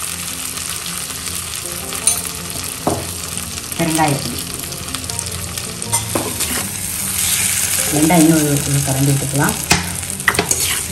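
Diced citron pieces sizzling in sesame oil in a hammered steel kadai while a slotted metal spatula stirs them and scrapes the pan several times. The scraping is busiest and loudest in the last few seconds.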